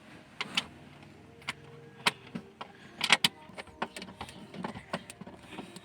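Irregular clicks and taps of a screwdriver and screw working into the plastic center console trim, a stiff screw being driven back in.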